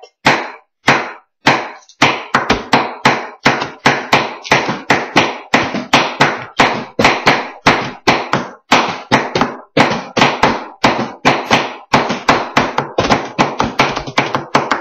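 Hands drumming and slapping on a tabletop: a run of sharp taps, a few spaced ones at first, then a quick, slightly uneven beat of about four to five a second.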